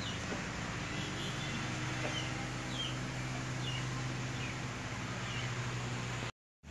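Small birds chirping in the background, a handful of short separate calls, over a steady low hum; the sound cuts out to silence just before the end.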